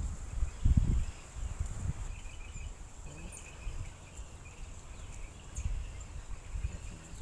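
Backyard outdoor ambience: a bird's short, rapid trills repeat every second or two over a steady high insect whine. Low thumps on the microphone are loudest about a second in.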